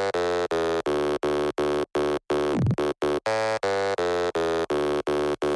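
Buzzy synthesizer note pulsing about three times a second at one steady pitch, with one quick downward pitch sweep a little after halfway: the intro of an electronic dance track.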